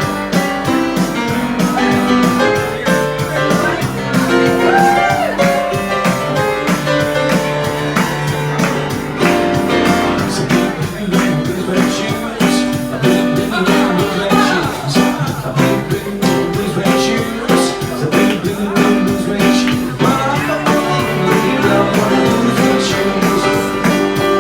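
Music with guitar over a steady beat, with no break.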